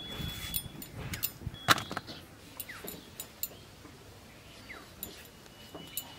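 Tomatoes being cut by hand on a bonti, a curved iron blade held upright under the foot: scattered soft clicks and knocks, the sharpest about a second and a half in.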